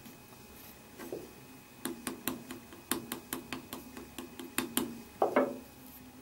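Fork tines pricking rolled mathri dough against a marble rolling board: a run of quick, sharp taps, about four a second, then a louder knock about five seconds in.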